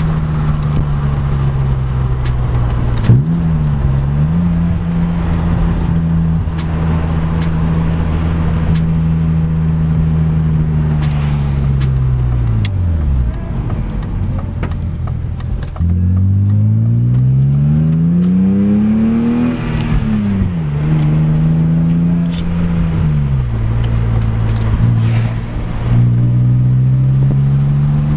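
BMW E36 engine through a newly installed aftermarket exhaust while driving. It starts at a steady cruise, then the revs fall away about twelve seconds in. A hard pull follows with revs climbing steadily, then an abrupt drop at a gear change, and the revs rise again near the end.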